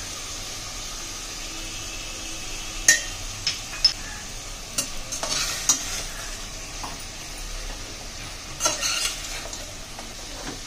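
Mutton bones frying in hot oil in a steel pressure cooker, a steady sizzle, while a metal spoon stirs them and knocks sharply against the cooker several times.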